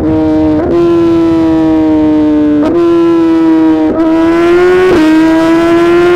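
A Suzuki GSX-R 1000 R's inline-four running hard through a full titanium SC-Project exhaust. The pitch steps abruptly about five times as it shifts through the gears.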